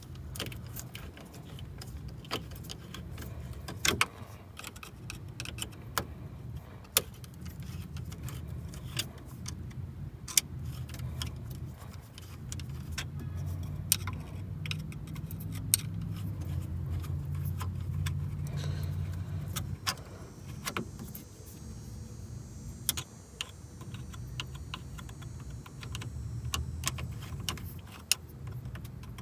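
Small screwdriver clicking, tapping and scraping against a radiator hose clip and the metal and plastic around it as it is pried loose: irregular sharp clicks, a few louder ones, over a low steady hum.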